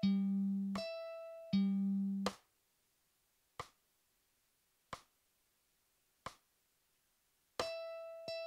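Mandolin open strings plucked one note at a time at a slow practice tempo, low open G alternating with high open E, a metronome click on each beat. A little over two seconds in the notes stop and only three evenly spaced metronome clicks count through a bar of rest. Near the end, repeated open-E notes resume at a slightly quicker tempo.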